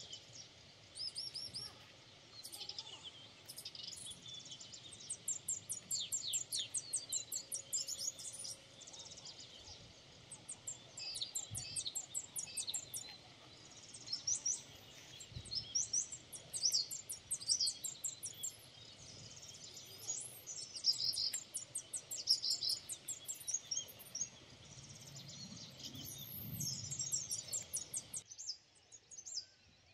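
Wild songbirds singing: phrase after phrase of quick, high, repeated chirps and trills, cutting off suddenly near the end.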